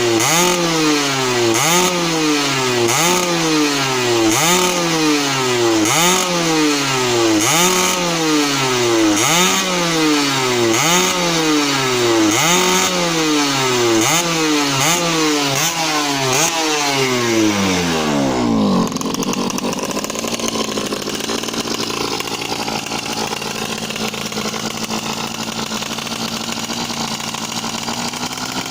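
Two-stroke underbone motorcycle engine being revved over and over, the pitch climbing and dropping about once every second and a half, as the throttle is blipped during a tune-up. About two-thirds of the way through, the revs fall away and the rising and falling stops, leaving a steady, quieter running noise.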